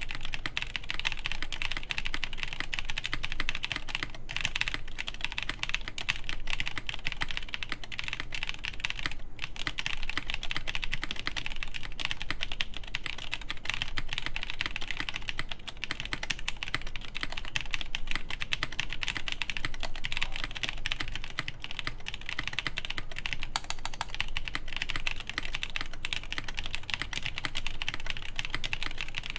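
Continuous typing on a Pontus 21xx mechanical keyboard with Durock Ultramarine V2 switches, 65 g springs and GMK keycaps, its main cluster mounted on the PCB with no plate. A dense, steady stream of key strokes, with a brief pause about nine seconds in.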